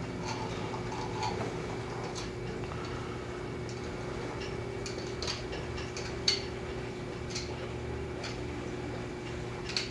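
A steady low machine hum with light, irregular ticks about once a second; the sharpest tick comes a little past the middle.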